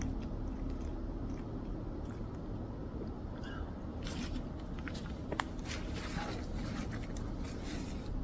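Close handling noises: rustling and a scatter of small sharp clicks, one louder click about five seconds in, over a steady low rumble.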